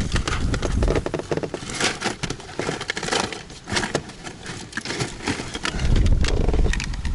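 Rustling and clicking handling noises, a fast jumble of small knocks and scrapes. Wind buffets the microphone at the start and again near the end.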